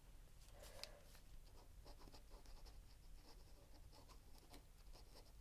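Faint scratching of a pen scribbling a border onto a paper index card, in quick, repeated short strokes.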